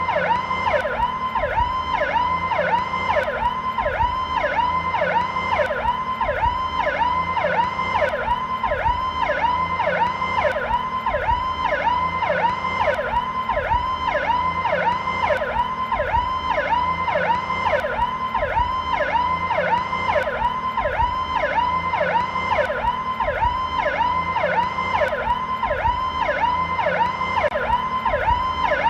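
American police car electronic siren sounding its Powercall tone in a slowed-down version: a steady, fast-repeating sweep that rises and falls in pitch about twice a second.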